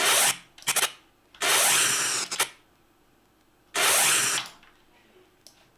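Transition sound effects played back from a video edit: three short bursts of hissing noise, each under a second long, with two sharp clicks just after the first.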